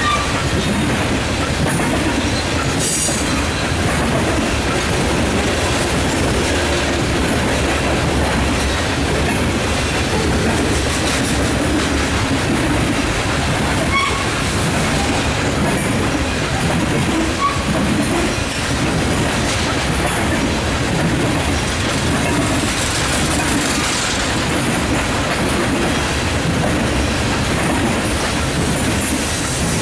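Loaded coal hopper cars of a freight train rolling past close by: steady loud noise of steel wheels on the rails with clickety-clack over the rail joints, and a few faint brief squeaks.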